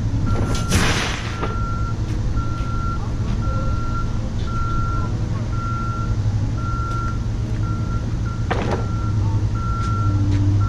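A vehicle's reverse warning alarm beeping one steady tone about four times every three seconds, over the low rumble of its running engine. Two short hisses come about a second in and again near the end.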